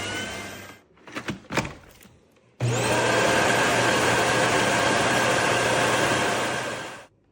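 Cordless vacuum cleaner motor running, then winding down about a second in. After a few knocks it starts again suddenly with a rising whine, runs steadily and cuts off abruptly near the end.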